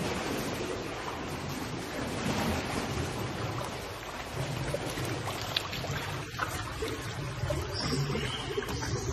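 Water sloshing and splashing steadily as a hippopotamus wades through a shallow pool.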